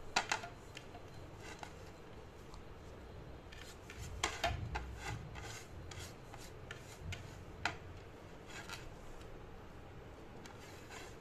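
Fingers scraping grated carrot across a plate and packing it into a plastic measuring cup: soft rubbing and rustling, broken by a few sharp clicks and taps, with a cluster of them about four seconds in.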